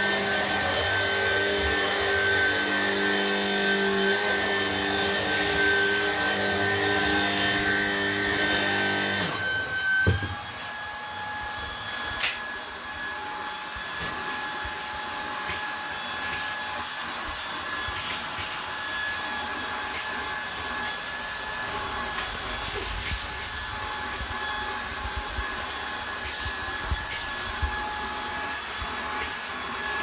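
Dyson V11 cordless stick vacuum running steadily on carpet with a whine. About a third of the way in there is a thump, the pitch shifts and it runs a little quieter, with a sharp click shortly after, as it goes from the floor head to handheld use with a crevice tool.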